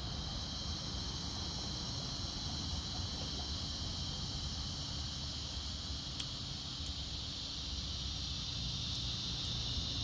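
Cicadas singing in the trees: a steady, high-pitched buzzing drone that grows a little louder near the end.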